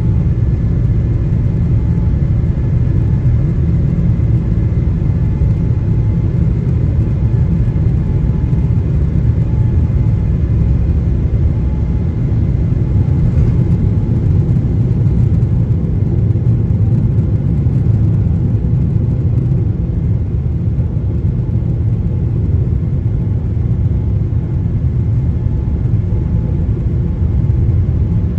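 A Boeing 777-300ER's GE90-115B turbofans at takeoff thrust, heard inside the cabin near the wing. A loud, steady, deep rumble with a faint steady whine above it carries through the takeoff run and into the initial climb after liftoff.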